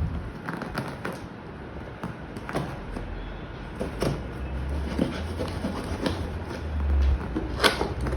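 Handling noises from unboxing a laptop: scattered light knocks, clicks and rustles, with a sharper click near the end, over a low hum.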